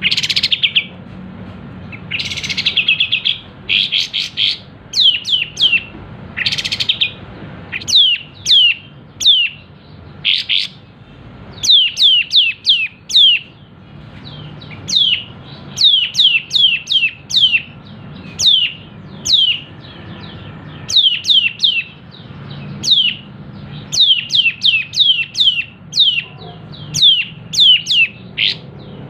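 Kapas tembak (white-shouldered triller) singing: sharp, high, downward-slurred notes delivered in quick clusters of three to five, with a few buzzy trills in the first several seconds.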